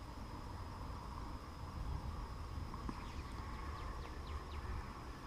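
Quiet outdoor background: a steady low rumble with a faint steady high tone, and a few faint quick chirps about three seconds in.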